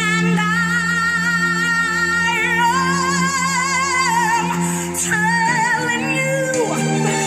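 A recorded song playing: a female singer holding long notes with heavy vibrato over a steady sustained accompaniment, moving to a new note about five seconds in and sliding down near the end.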